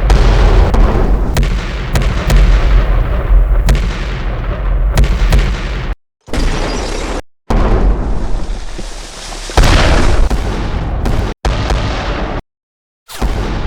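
Battle sound effects: a heavy explosive rumble with rapid gunshot-like cracks and booms, as of naval guns firing. It cuts abruptly to silence several times, the longest gap about two-thirds of a second near the end.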